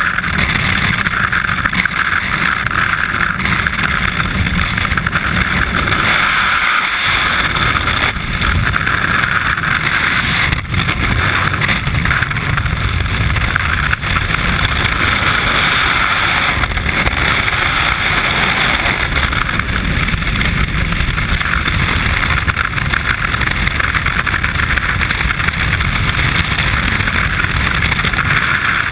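Freefall wind rushing over a skydiver's camera microphone: a steady, loud rush of noise.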